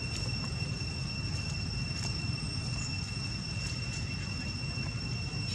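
A steady, unbroken high-pitched insect drone, such as a cricket or cicada, over a low rumble.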